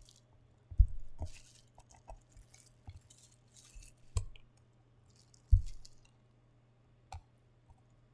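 Handling noises: a few dull thumps, the loudest about a second in and about five and a half seconds in, with short crinkling rustles of packaging between them.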